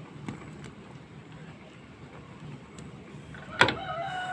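A pan of fish and eggplant stew boiling on the stove: a low, steady hiss with a few faint pops. Near the end a sharp metal clank against the pan rings on for about a second.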